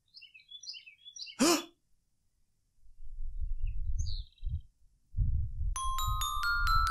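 Cartoon sound effects: light bird chirps, then a sudden short effect with a quick upward pitch swoop about a second and a half in. Low rumbling starts about halfway through, and near the end a run of glockenspiel-like chime notes rings out, stepping upward.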